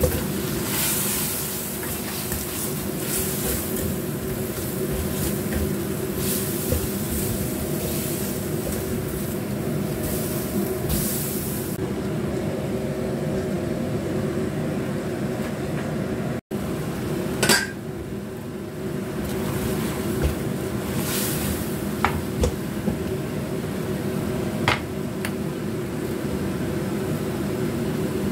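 Shrimp and cucumber sizzling in a stainless steel wok over a steady low hum. The sizzle drops away about twelve seconds in as the wok is covered with a domed metal lid. Later come one loud metal clank and a few sharper metal knocks on the wok.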